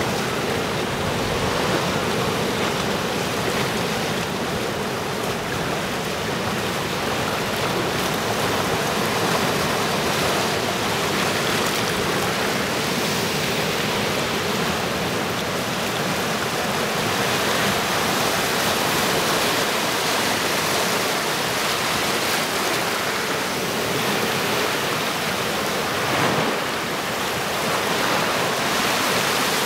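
Sea surf washing and breaking among boulders on a rocky shore: a steady rushing of water with gentle swells, one wave a little louder about 26 seconds in.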